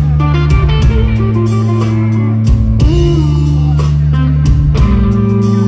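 Blues-rock band playing an instrumental passage, led by guitar over a bass line, with sharp hits recurring through it.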